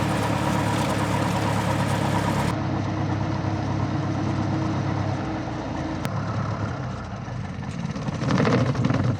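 Cessna 172S's four-cylinder Lycoming piston engine running steadily at low power on the ground after landing. Its steady hum fades about six seconds in, and the sound turns rougher near the end.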